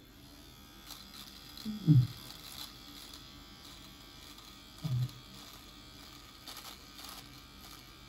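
Philips Series 1000 electric shaver buzzing steadily as it trims stubble around the chin and lip. A brief, low, falling vocal sound comes twice, about two seconds in and about five seconds in.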